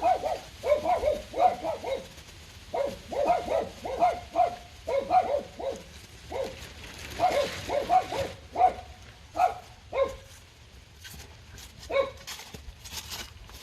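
A dog barking over and over in quick runs of short barks, thinning to a few scattered barks after about ten seconds.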